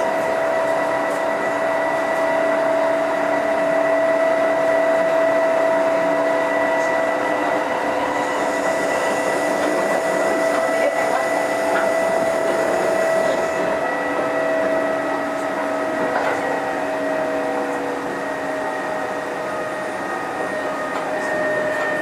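Onboard running sound of a Kintetsu 2430-series electric train at speed: a steady whine of motors and gearing over the rumble of wheels on rail. A faint high hiss joins for a few seconds in the middle, and the whine eases slightly lower in pitch near the end.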